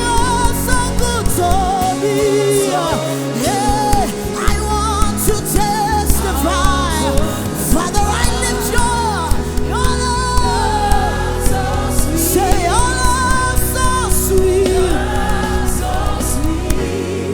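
Gospel worship music: a held, wavering sung melody over a full band with bass and steady percussion.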